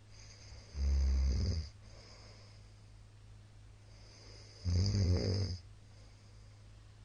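A middle-aged man snoring loudly in his sleep: two snores, each about a second long, some four seconds apart.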